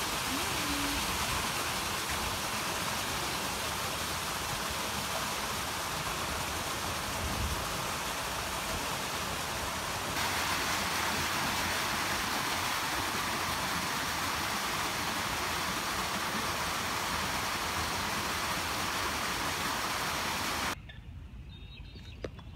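Steady rushing noise, brighter from about ten seconds in, that cuts off suddenly near the end.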